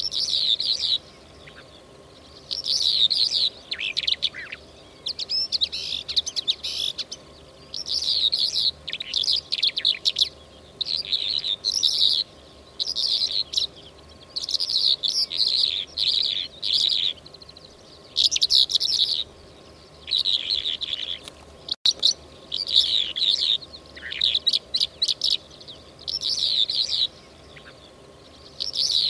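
A lark singing: rapid, high warbling phrases about a second long, repeated over and over with short pauses between.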